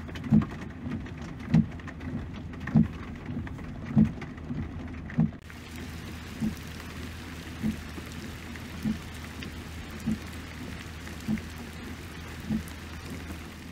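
Steady rain falling, its hiss growing brighter about five seconds in, with dull thumps at an even pace of roughly one a second: footsteps through waterlogged ground.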